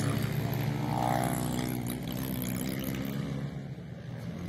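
Small-displacement 110cc pit bike engines running together in a race, a steady droning drone that eases slightly about three and a half seconds in and then builds again.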